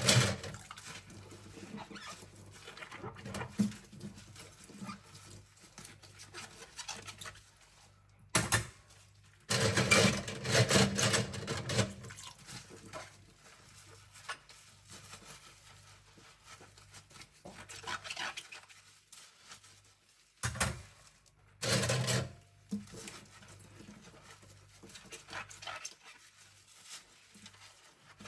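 Cutlery and utensils being scrubbed by hand at a sink: irregular scrubbing and rubbing with scattered clinks of metal, and a louder stretch about ten seconds in, over a faint steady low hum.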